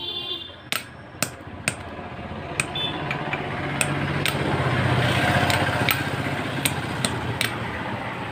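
Steel hammer tapping the end of a steel engine shaft to drive a small gear onto it: short, sharp metal-on-metal taps about every half second, over a background rush that swells in the middle.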